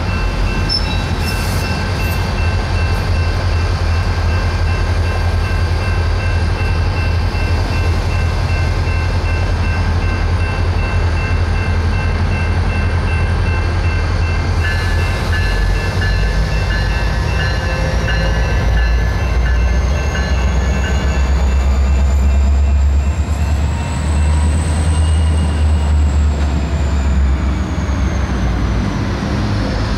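A pair of BNSF diesel locomotives running light through a rail yard, with a deep, steady engine rumble that grows loudest past the middle as they come closest. A thin high whine rises in pitch and falls again in the second half.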